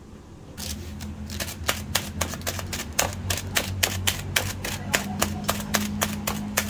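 Plastic bag of soybeans mixed with tempeh starter being pricked, a quick even run of sharp ticks about four or five a second; the holes let air in for the tempeh to ferment.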